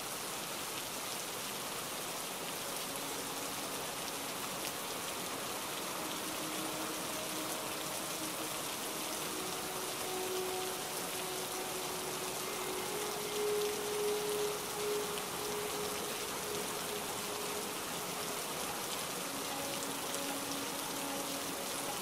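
Steady heavy rain falling, a dense even hiss. Faint long-held low notes come and go underneath it.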